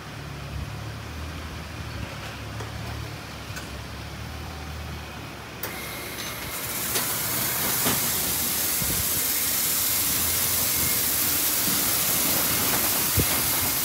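Mark VII Merchandiser in-bay automatic car wash starting its spray: a low machine hum, then about five and a half seconds in a loud steady hiss of water spray starts and carries on.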